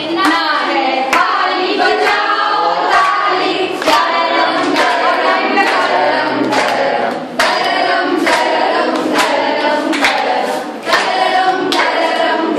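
A group of women singing a Hindi matra song together in chorus, with claps on the beat a little under once a second.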